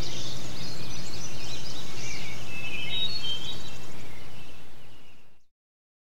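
Small songbirds chirping and twittering over a low steady hum, fading out near the end.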